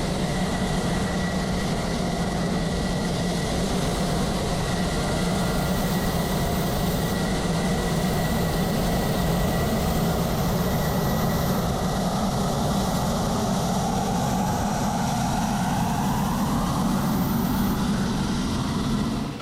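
Fighter jet engine running steadily with a high, even whine. A second tone rises a few seconds before the end, then the sound cuts off suddenly.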